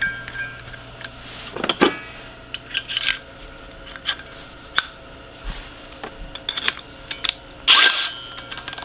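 Scattered metallic clinks and clatters, a dozen or so sharp knocks and rattles, over a steady low hum. The loudest clatter comes near the end.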